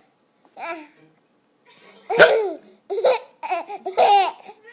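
Baby boy with the hiccups laughing and babbling in about five short, high-pitched bursts, the loudest about two seconds in.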